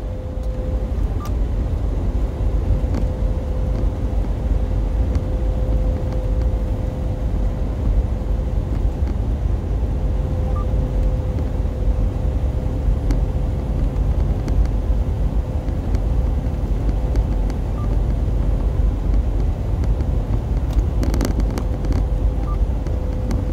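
Steady low rumble of a Freightliner Cascadia semi truck's diesel engine idling, heard inside the cab, with a faint steady whine running through it. A few short clicks come about three-quarters through.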